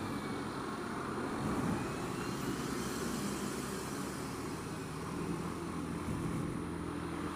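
Steady low engine hum of slow, dense motor traffic, heard from a scooter edging along between two large coaches.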